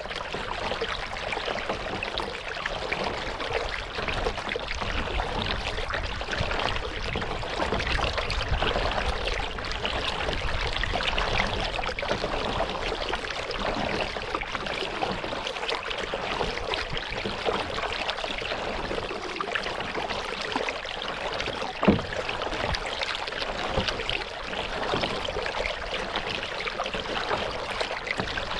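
Water trickling and splashing steadily around a kayak being paddled, with a low rumble underneath. A single sharp knock about three-quarters of the way through.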